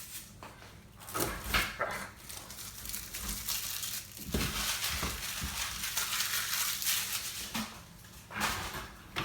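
Cardboard and plastic packaging rustling, crinkling and scraping as a boxed UPS is unpacked, in irregular bursts with brief lulls about four seconds in and near the end.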